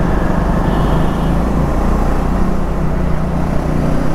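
Triumph Scrambler 400X's single-cylinder engine running steadily at low road speed, heard from on the bike, with wind and road noise over a low, even engine note.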